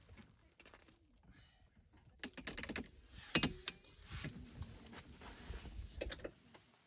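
Clicks, knocks and rustling of fabric as a person climbs into and settles inside a hard-shell rooftop tent on a pickup, starting about two seconds in with the loudest knock about halfway through.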